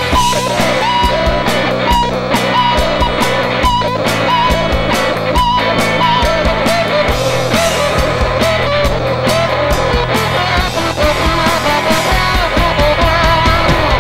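Rock song: guitars over drums with a steady beat, and a wavering lead melody line on top.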